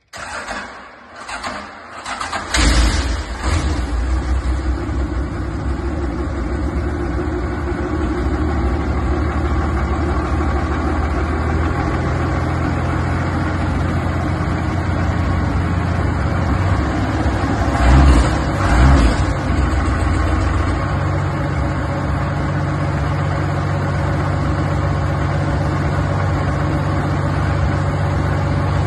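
International Harvester 460 tractor engine cranked by the starter for about two seconds, then catching and running. It settles into a steady idle, with two brief revs about 18 and 19 seconds in, then runs on at a slightly different steady speed.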